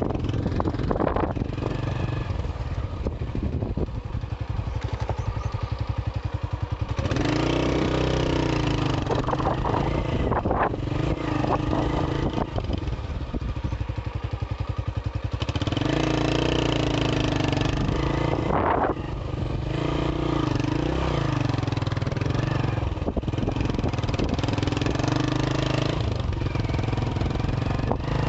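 Honda CB125 motorcycle engine running on its stock exhaust while being ridden, the throttle opened and eased several times so the engine note rises and falls, with spells of harder pulling.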